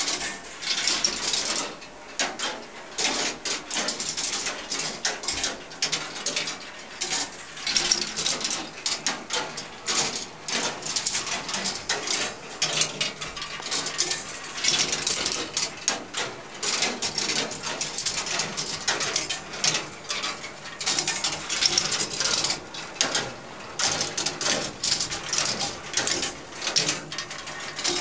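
Meccano-built ball machine running: a continuous, irregular clatter of clicks and rattles as balls roll and drop through its metal tracks and moving parts.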